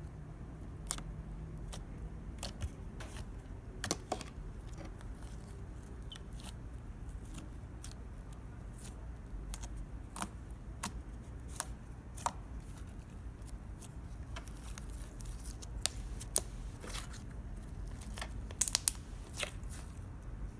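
Fluffy slime made from PVA glue and shaving cream, handled by hand: scattered sharp clicks and crackles, a few louder ones near the end, over a low steady hum.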